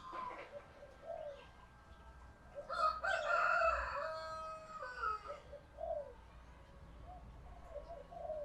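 Female spotted dove cooing in short, low notes; it is a hen in laying condition, whose call is used to stir male doves into calling. About three seconds in, a louder, harsher bird call lasting over two seconds rises above the cooing.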